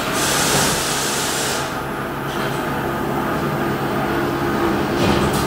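CNC machining centre running in a machine shop: a steady mechanical hum with a hiss that starts at once and stops about a second and a half in, and another brief hiss near the end.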